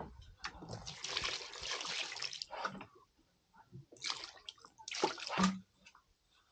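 Water pouring and splashing: one longer pour about a second in, then two short splashes near the end.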